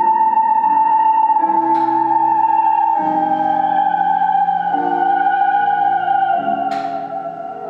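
Slow music: a single high note held for many seconds, sliding slowly down in pitch, over soft chords that change every second or two.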